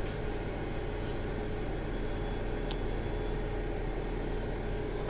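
A few light, sharp clicks, one crisper than the rest about halfway through, from a 7mm flexible nut driver working the bolts that hold a commercial washing machine's inlet valve. Under them runs a steady low hum.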